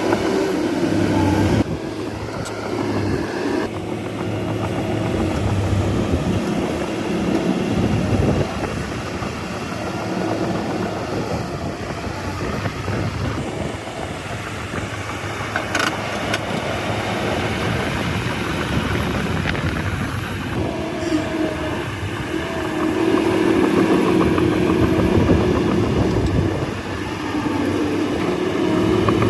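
Bulldozer diesel engine running under varying load, its drone shifting in pitch and loudness as it works.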